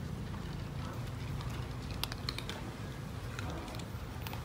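Cat chewing dry kibble: irregular, crisp crunching clicks, a cluster of them about halfway through and a few more near the end, over a steady low rumble.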